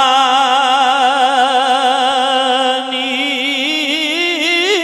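A man's voice singing one long held note of a slow, unaccompanied Punjabi devotional verse. About three seconds in the note starts to waver, and near the end it rises.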